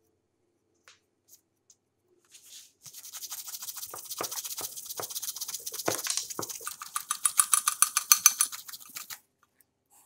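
Cloth rubbed quickly back and forth by hand over a knife's brass ferrule and wooden handle, buffing them with polish: a rhythmic scrubbing hiss of several strokes a second. It starts about three seconds in, gets faster and louder near the end, and stops about a second before the end.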